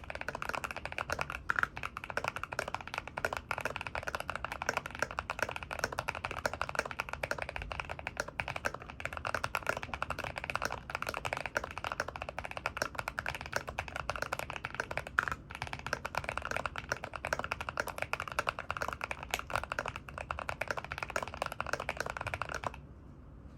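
GMMK Pro mechanical keyboard with lubed Boba U4T tactile switches on a brass plate, being typed on quickly and continuously. Keystrokes come in a dense stream and stop just before the end.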